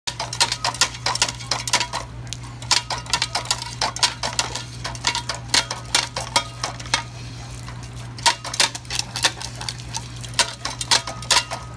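Irregular sharp metallic clicks and clinks, several a second, as a dog stamps on the pedal of a metal step-on dog water fountain and water spouts up for the other dog to drink. A steady low hum runs underneath.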